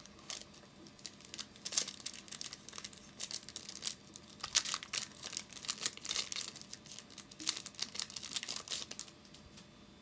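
A trading-card pack's wrapper being torn open and crinkled by hand, a run of sharp crackles that stops near the end.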